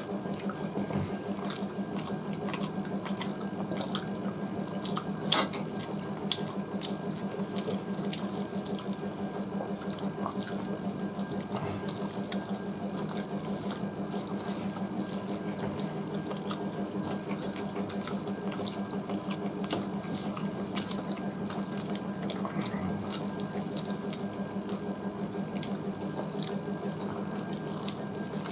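Eating sounds: people eating rice and curry by hand from steel plates, with scattered short clicks and smacks of chewing and fingers on metal, the sharpest about five seconds in. Under it runs a steady rushing noise with a low hum.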